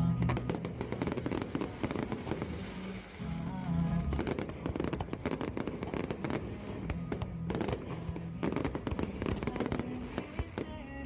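Fireworks display: a rapid, dense run of bangs and crackling bursts that thickens about four seconds in, over music with held low notes.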